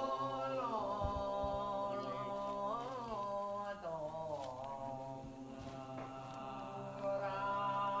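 Wordless chanting in long held notes, the pitch sliding briefly about one and three seconds in. A fuller layer of voices comes in near the end.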